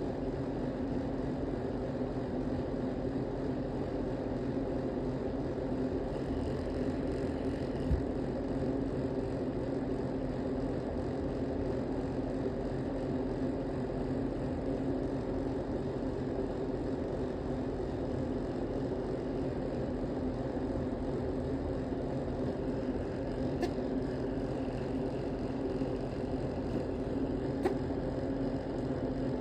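A steady, unchanging mechanical drone, with a faint click about eight seconds in and two more near the end; no burp or fart stands out.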